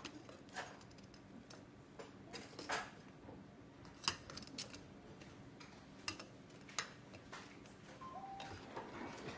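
Light clicks and taps of utensils against dishes, scattered a second or two apart as ladyfingers are dipped and layered.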